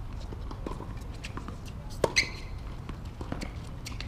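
Tennis ball bouncing and being struck on an outdoor hard court, with scattered light footstep and shoe scuffs; two sharp pops about two seconds in are the loudest sounds.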